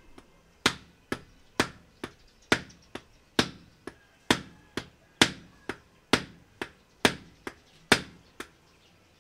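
Rubber mallet striking down on the top of a mountain bike fork's steerer tube, driving a star nut into the tube. About eighteen regular blows, roughly two a second, alternating louder and softer.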